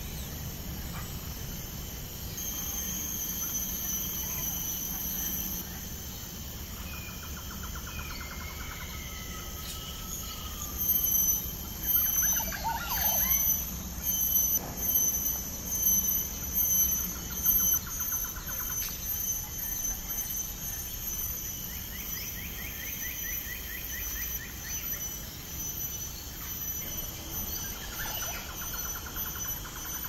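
Forest ambience: insects buzzing steadily at a high pitch, with birds calling and trilling at intervals. A run of louder, pulsing calls comes in the middle.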